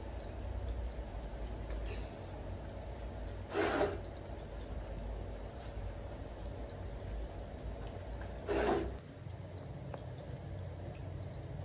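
Water trickling and dripping in a small tiled bathroom, with two brief louder swishes a few seconds apart.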